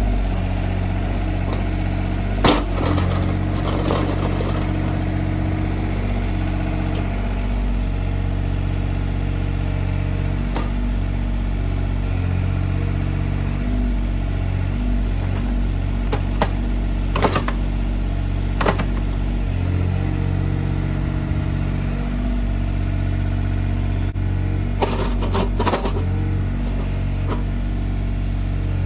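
Mini excavator's diesel engine running steadily under hydraulic load while the bucket digs soil, with a few sharp clanks of the bucket and its teeth against dirt and stones, about a few seconds in, twice around the middle and a short cluster near the end.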